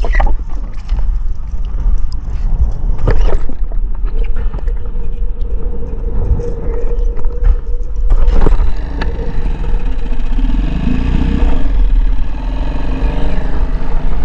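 Small Parsun outboard motor running as the inflatable tender moves over the water, with heavy wind noise on the microphone. There are a few sharp knocks, and the engine note comes through more fully in the last few seconds.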